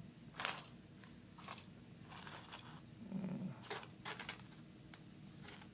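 Handling noise from a Nexus 7 tablet: its soft-touch plastic back rubbing against hands and scraping and knocking lightly on a wooden desk, a series of short brushes and bumps.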